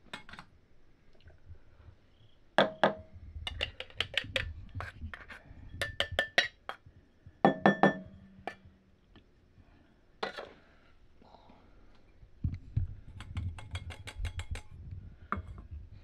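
Quick metallic clinks and taps from an espresso portafilter and the dosing cup seated on it being handled and knocked, coming in several short runs of a few rapid strikes each.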